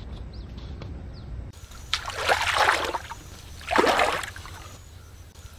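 Water sloshing and swashing twice, each surge lasting about a second, as a person wades chest-deep through pond water.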